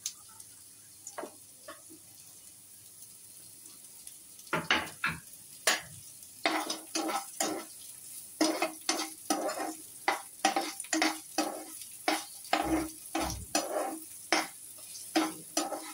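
Finely chopped onions frying in hot oil in a frying pan, with a steady sizzle. From about four and a half seconds in, a spatula scrapes and stirs them around the pan in quick strokes, about two a second.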